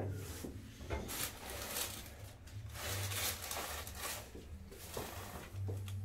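Soft rustling and scuffing as clothing and bodies shift on a padded chiropractic adjusting table while the patient's head and shoulders are positioned by hand, in several short spells with no sharp crack.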